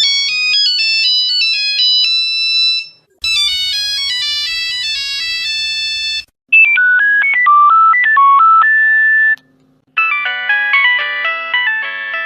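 Nokia mobile phone ringtones played one after another: four different short high-pitched melodies of quick stepped notes, each about three seconds long, with brief silent gaps between them.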